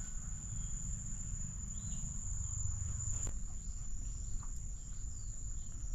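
Insects trilling steadily at one high pitch, over a low rumble, with a few faint short chirps and a click.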